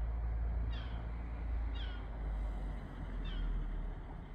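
An animal's short, falling calls, three in a row about a second or so apart, over a steady low rumble.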